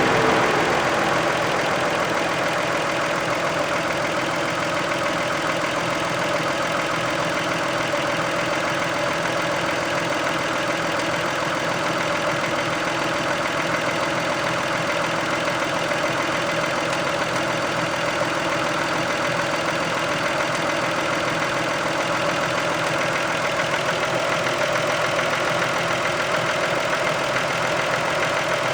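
1990 Toyota Camry's 2VZ-FE V6 engine idling steadily, settling slightly quieter about a second in.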